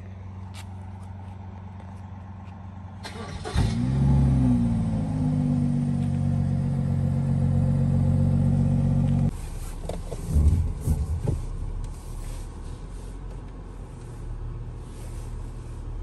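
2016 BMW X3's engine flares up sharply about three and a half seconds in, rising and falling in pitch, then settles into a steady idle, heard at the twin exhaust tips. The engine sound cuts off suddenly about nine seconds in, giving way to quieter cabin sounds with a few thumps.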